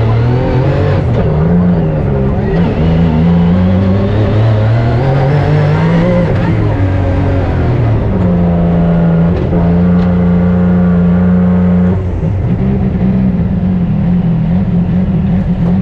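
Rally-raid car's engine running hard. Its pitch climbs and drops several times as it revs through the gears, holds steady for a few seconds, then drops about twelve seconds in.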